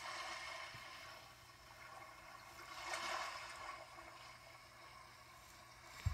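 Water washing in gentle swells, louder at the start and again about three seconds in. A short low thump comes at the very end.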